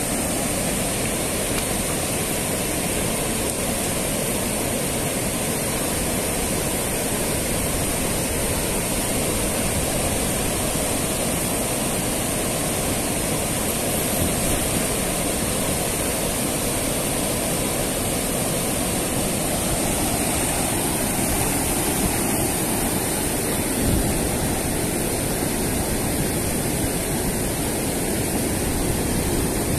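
Water pouring over a river weir: a steady, even rush of falling water with the fast current running through it.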